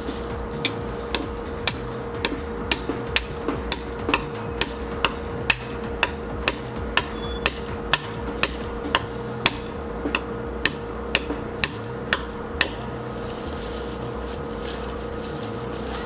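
Hammer driving a nail into a coconut palm trunk: sharp metal-on-metal blows at a steady rhythm of about two a second, which stop near the end.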